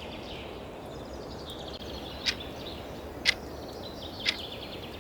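Countdown-timer ticks, one sharp tick a second starting about two seconds in, three in all, over a steady background of outdoor ambience with birds chirping faintly.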